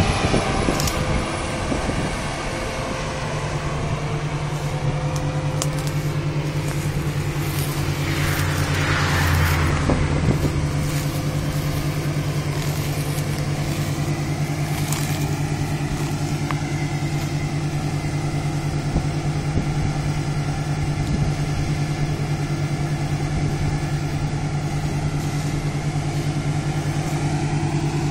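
Claas Lexion 670 combine harvester running steadily while harvesting and unloading grain, a constant low machine hum. A brief rushing noise rises and falls about eight to ten seconds in.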